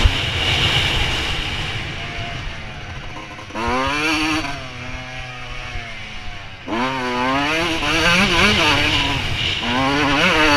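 Suzuki RM125 125 cc two-stroke single-cylinder engine being ridden hard, its pitch rising and falling with the throttle. It eases off twice and is snapped open again with a sharp rise in pitch, about three and a half and six and a half seconds in. A brief sharp knock comes right at the start.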